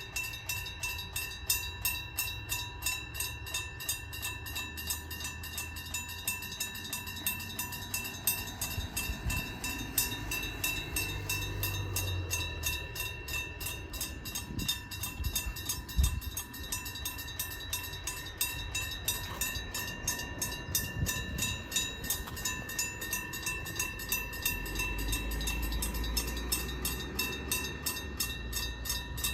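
Electric-bell level-crossing warning ringing rapidly and continuously, each fast stroke carrying the same few bright bell tones. A passing diesel railcar's low rumble swells under the bell in the middle and again near the end.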